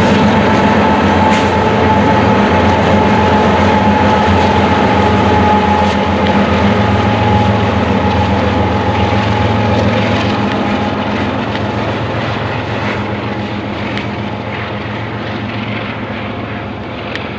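Union Pacific diesel locomotives passing, their engines running with a steady low drone and a steady higher hum. The sound fades gradually as they pull away.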